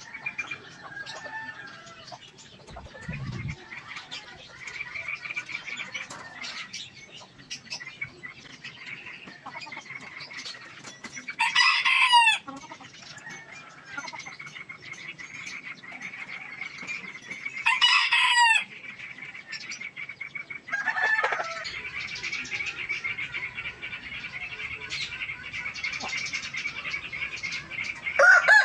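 Domestic chickens calling: two loud calls of quick repeated notes, each under a second, about six seconds apart, and a shorter call a few seconds later. Quieter chicken sounds and a steady high chirping run underneath.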